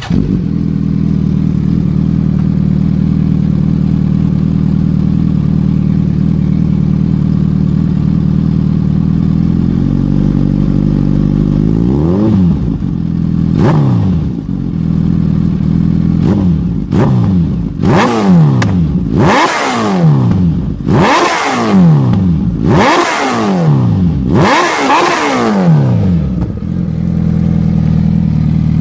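Suzuki Hayabusa inline-four sport bike with an aftermarket slip-on exhaust, standing still and idling steadily. About twelve seconds in the rider starts blipping the throttle, and the revs come quicker and climb higher. Near the end the engine settles back to idle.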